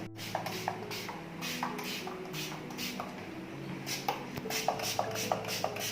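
Background instrumental music with a steady, evenly repeating beat, held notes and short plucked notes.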